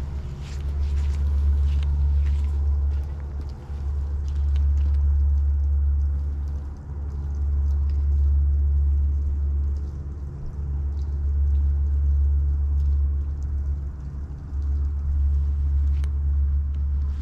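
A low rumble that swells and eases about every three seconds, with faint scattered clicks over it.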